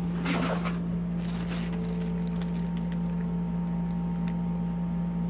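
Zip-lock plastic bag of drain-snake cutter heads crinkling and rustling as it is handled: a burst of rustling about half a second in, then light crinkles and clicks, over a steady low hum.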